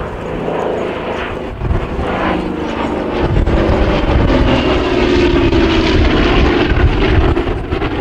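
The twin radial piston engines of a Douglas A-26C Invader drone steadily as it flies its display. The engine note grows louder about three seconds in.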